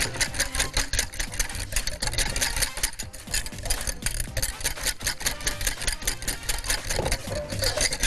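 Wire balloon whisk beating hollandaise sauce in a glass bowl, its wires clattering against the glass in a fast steady rhythm of several strokes a second, with a short pause about three seconds in.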